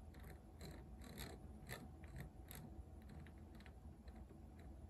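Faint, irregular clicking of a Sony CD changer's disc-select jog dial being turned by hand, several clicks a second at first and fewer later on.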